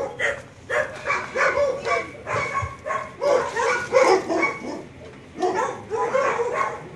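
Dogs barking in short, rapid barks, several a second, with a brief lull about two-thirds of the way through.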